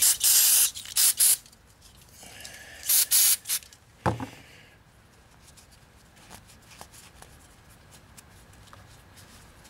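Aerosol solvent cleaner spray can hissing in several short bursts over the first few seconds, washing metal shavings off an engine oil screen. A single sharp knock comes about four seconds in.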